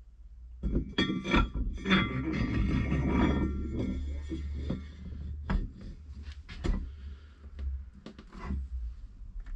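Metal parts and tools being handled: a dense clinking, rattling stretch for the first few seconds, then scattered clicks and knocks, over a steady low hum.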